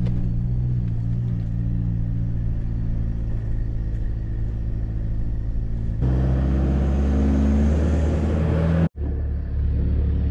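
Toyota Hilux engine running steadily as the pickup drives through soft sand, heard as a low drone inside the cab. About six seconds in the sound turns brighter and louder, with engine and wind noise outside the open driver's window and the engine note rising slightly. Just before the end it cuts out for an instant and the steady cabin drone returns.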